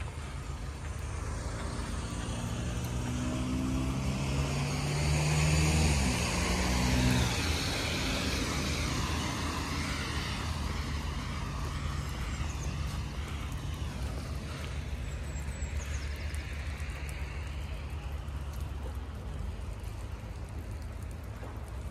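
A car passes on the wet road: engine hum and tyre hiss on wet asphalt build up, the engine note drops as it goes by about six seconds in, and the hiss of its tyres then slowly fades away.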